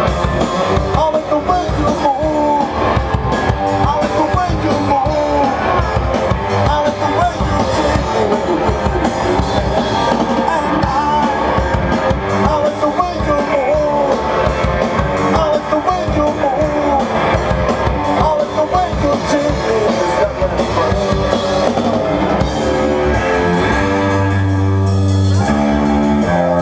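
Live rock band playing loud: distorted electric guitar, bass and drum kit, with rapid drum hits and a wavering lead line over the top. Over the last few seconds it settles into long held chords.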